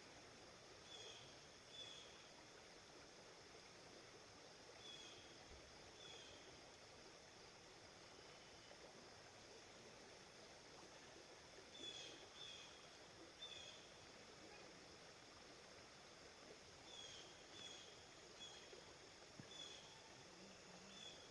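River water flowing faintly and steadily, with a bird giving short high chirps, often two at a time, that recur every few seconds.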